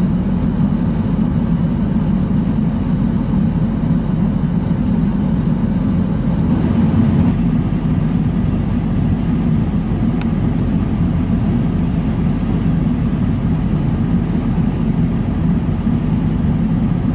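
An engine running steadily at an even speed, without revving up or down.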